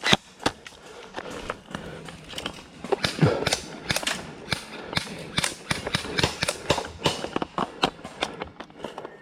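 Airsoft guns firing single shots: sharp pops at an uneven pace, several a second.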